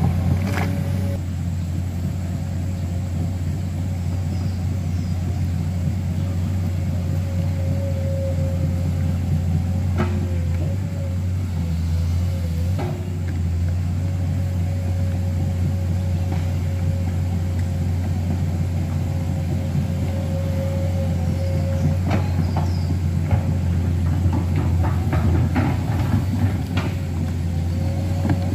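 Komatsu PC210 hydraulic excavator's diesel engine running steadily as the machine crawls forward on its tracks through mud: a low drone with a thin steady whine over it. A few sharp knocks sound through it, several in quick succession near the end.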